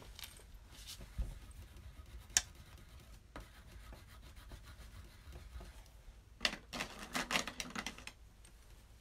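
Quiet rubbing and scratching of hands and art supplies on paper and the tabletop, with two light taps about one and two and a half seconds in, and a louder scratchy rubbing spell about six and a half seconds in that lasts under two seconds.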